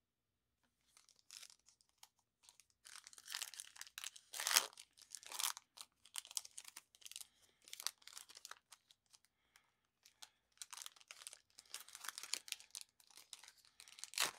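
Shiny foil wrapper of a Panini Prizm football card pack crinkling and tearing as it is ripped open by hand, in irregular crackling bursts that start about a second in.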